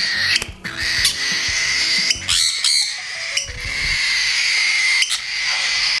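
Young hand-fed parrots, cockatiel chicks and green-cheeked conures, calling hungrily. A continuous raspy chorus is cut by short, sharp squawks several times.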